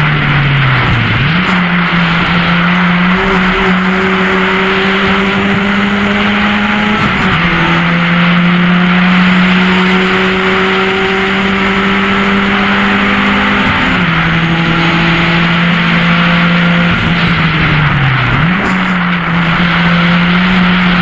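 Mk1 VW Golf race car's four-cylinder engine heard from inside the cabin, pulling hard at high revs. The pitch shifts at gear changes, and the note dips and climbs back about a second in and again near the end.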